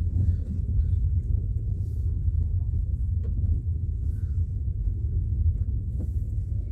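Low, steady rumble of a car in motion, heard from inside the cabin.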